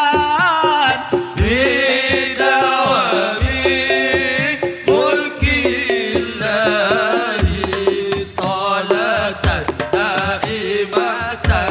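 Sholawat (Islamic devotional song) being performed: a wavering, ornamented vocal melody over hand-drum percussion, with deep drum strokes every couple of seconds.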